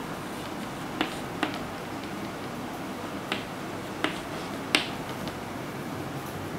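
Chalk tapping on a chalkboard while a label is written: about five sharp taps spread over the few seconds, the last the loudest.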